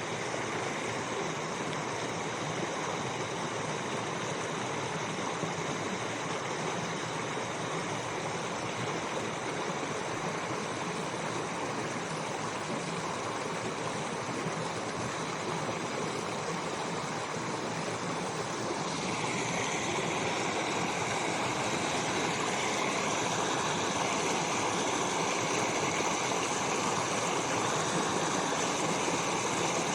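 A brook running over stones in a steady rush of water, getting a little louder with a brighter splash from about two-thirds of the way through.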